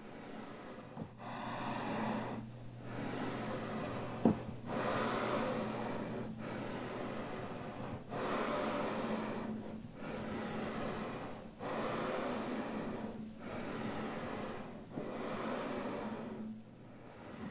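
Slow, even breath-like rushes of air, in and out, about ten strokes each lasting a second and a half, over a low hum. A single sharp click sounds about four seconds in.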